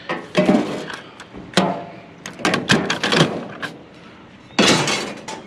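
Metal scrap pieces, such as metal mounts, clanking and knocking together as they are handled, some hits ringing briefly. There is a louder scraping rattle near the end.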